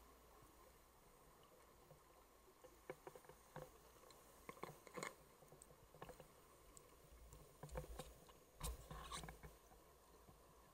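Near silence underwater, with faint scattered clicks and crackles and a few low rumbles in the second half.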